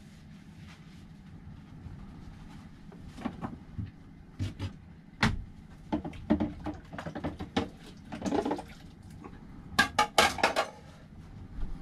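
Dishes and utensils clinking and knocking at a camper van's small galley sink, a string of sharp clinks and clacks that starts about three seconds in and is loudest near the end.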